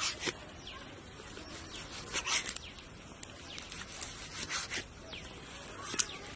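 Large kitchen knife slicing through ripe tomatoes onto a wooden chopping block: a handful of short, sharp cutting strokes at uneven intervals.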